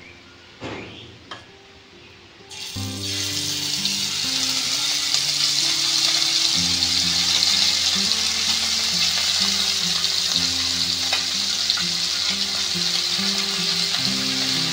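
Small masala-coated fish dropped into hot mustard oil in an iron kadhai, starting to sizzle and fry about three seconds in and going on steadily. A soft background music bed with shifting low notes plays underneath.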